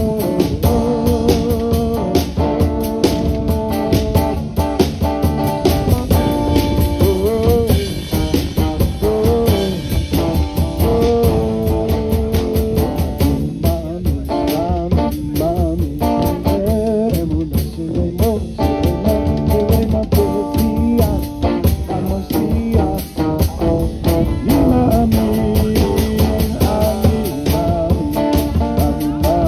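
Live rock band playing, with a drum kit keeping a steady beat under electric and acoustic guitars.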